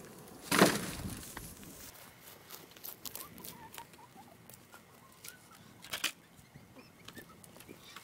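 Wooden slab boards dropped onto a pile, a loud clatter about half a second in, then a lighter knock of wood around six seconds in. Faint short bird calls sound in between.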